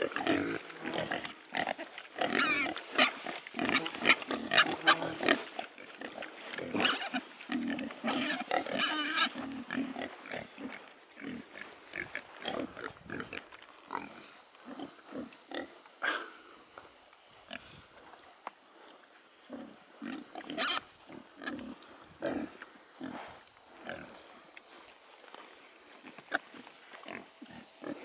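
A group of young pigs grunting and squealing. The calls are dense and overlapping for the first ten seconds or so, then thin out to scattered grunts with an occasional sharp squeal.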